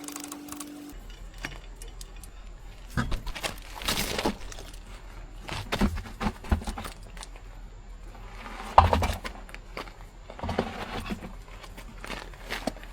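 Hand tools and metal parts clinking and knocking as a car's wheel and brake are taken apart: scattered, irregular clanks, the loudest about nine seconds in.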